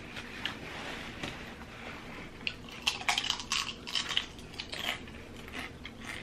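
Tortilla chips crunching as they are bitten and chewed, a string of short crisp cracks that come thickest about three to five seconds in, with light clinks from bowls and forks.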